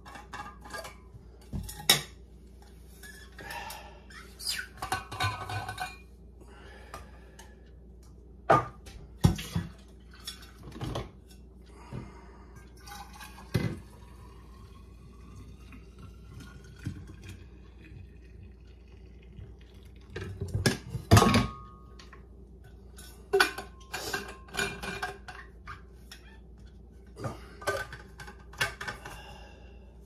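Coffee poured from a glass carafe into a stainless-steel thermos, its pitch rising slowly as the flask fills, among clinks and knocks of the metal flask and carafe being handled. The loudest clatter comes about two-thirds of the way through.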